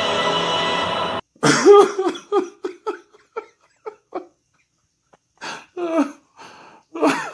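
Music stops abruptly about a second in. A person's voice then follows in a run of short bursts that trail off, with a few more bursts about two seconds later.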